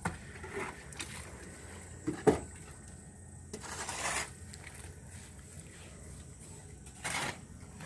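A long-handled hoe working a heap of wet cement mortar on a concrete floor: a few separate scrapes through the mix, with one sharper knock about two seconds in.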